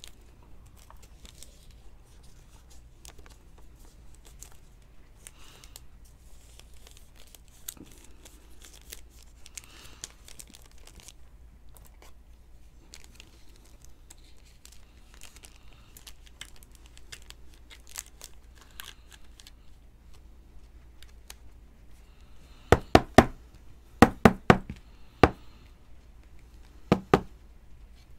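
Foil trading-card pack crinkling and a clear plastic card toploader being handled. Near the end comes a quick run of about ten sharp knocks in three groups, the loudest sounds here.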